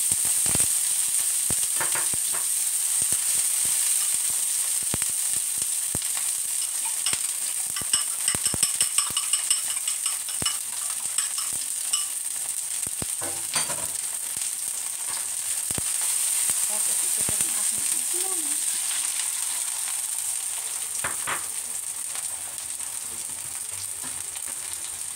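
Chopped spring onion, and then beaten egg, sizzling in hot oil in a stainless steel wok, with scattered clicks and a quick run of ticks about eight seconds in. The sizzling eases off toward the end.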